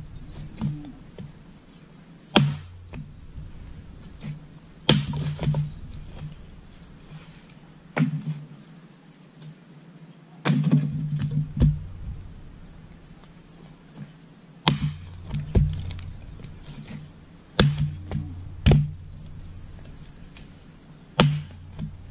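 Firewood being split by hand: a dozen or so sharp chops of a steel blade biting into wood, irregularly spaced one to three seconds apart, with birds chirping in the background.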